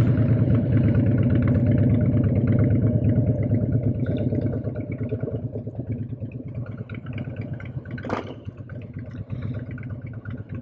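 Harley-Davidson V-twin motorcycle engine running on the road, gradually getting quieter as it eases off. A single sharp click about eight seconds in.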